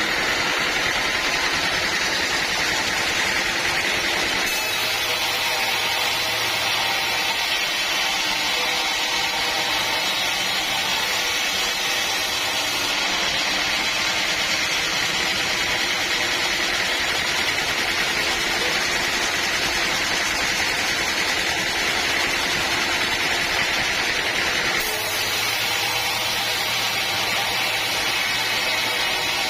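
Sawmill machinery running steadily, a dense mechanical whine and rush with small shifts in tone a few times.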